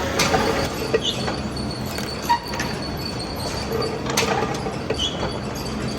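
Workshop noise with a steady background din and several sharp metal-on-metal knocks and clinks, some of them ringing briefly.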